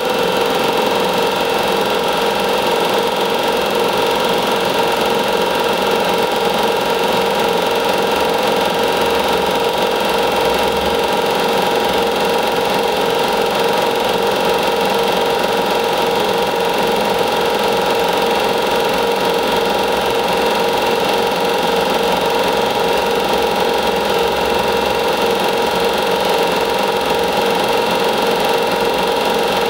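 Chinon SP 330 Super 8 sound projector running, its motor, cooling fan and film transport making a steady whir with a fast, even clatter.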